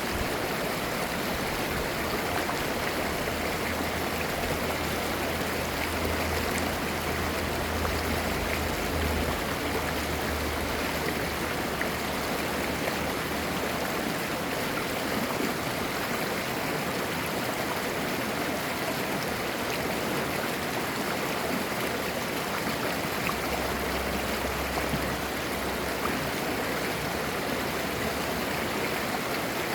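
A mountain valley stream: clear water flowing with a steady, even babble.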